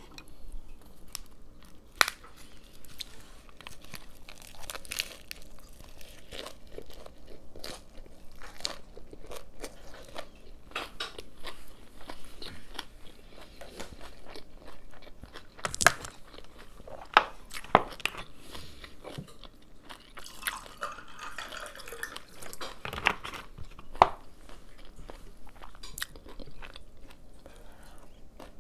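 Close-up chewing of a lettuce-leaf wrap with rice and meat: irregular crunching of fresh lettuce and wet mouth clicks, with a few sharper crunches.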